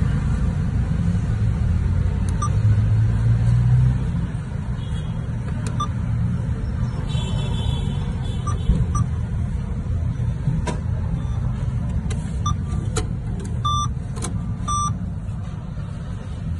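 Short cash-machine keypad beeps, scattered at first, then a few in quick succession, and two longer beeps near the end as the machine returns the card. All of it sits over a steady low rumble.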